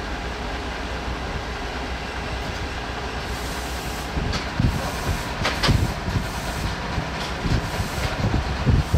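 Steady low engine rumble from a rail maintenance vehicle. From about four seconds in, irregular metallic knocks and clinks come from work on the overhead-line fittings.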